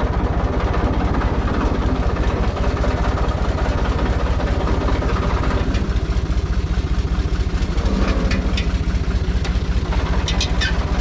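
Farm tractor engine running steadily while the tractor backs up with a loaded front-loader bucket, with a few brief sharp metallic-sounding ticks over it in the last few seconds.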